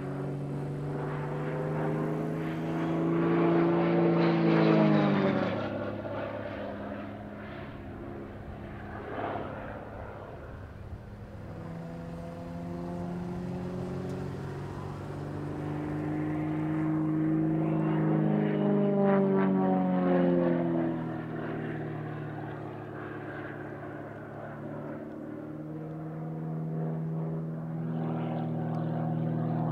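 Extra 300L aerobatic plane's engine and propeller droning steadily through aerobatic manoeuvres. It swells twice, about five seconds in and again about nineteen seconds in, its pitch climbing and then dropping as each swell passes.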